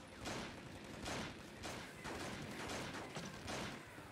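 A string of handgun shots in a shootout, about five, spaced roughly half a second to a second apart, each trailing off briefly.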